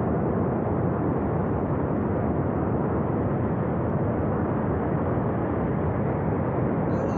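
Flash flood surging down a mountain gorge after a glacier burst: a loud, steady rushing rumble of water and debris, with no breaks.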